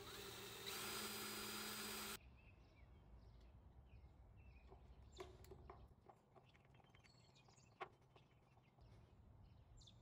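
Cordless drill boring a pilot hole into a steel trailer rail, running steadily and stopping abruptly about two seconds in. After that, a few faint clicks from a hand screwdriver turning a screw.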